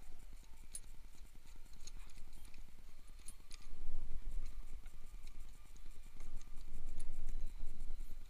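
Irregular light clicks, taps and knocks of hands handling mini dirt bike parts and cables during assembly, over a low handling rumble that gets louder about halfway through.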